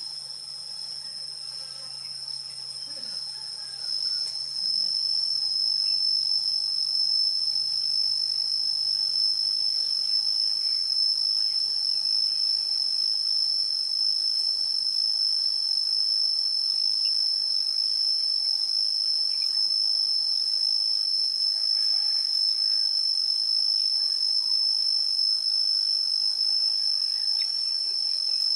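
Steady high-pitched insect chorus, an unbroken trill that grows louder about four to five seconds in, then holds steady.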